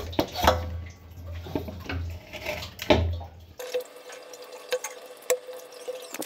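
Hands kneading wet chapati dough in a steel bowl, with irregular wet squelches and knocks against the bowl. About three and a half seconds in, the sound changes suddenly to scattered light taps of a dough ball being patted flat on a wooden rolling board.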